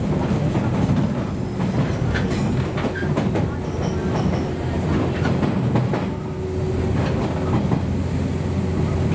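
Running sound inside a JNR Series 117 electric train's motor car: a steady low rumble with wheels clicking and clattering over rail joints and points, and a faint steady hum in the second half.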